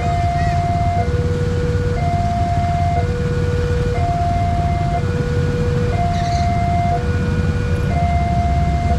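Indonesian level-crossing warning alarm sounding from the loudspeaker on the signal post: an electronic two-tone ding-dong, a high tone and a low tone taking turns about once a second, meaning a train is coming and the crossing is closed. Under it runs the steady low rumble of a queue of idling motorbike engines.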